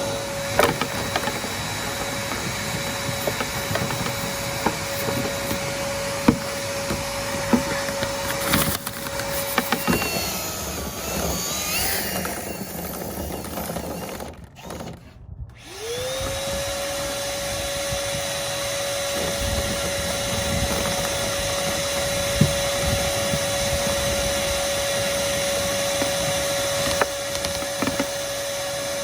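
A vacuum cleaner's motor whines steadily while brush rods knock and scrape inside a dryer vent duct. The whine breaks off about ten seconds in, falls almost silent around fifteen seconds, then spins back up to full speed about a second later.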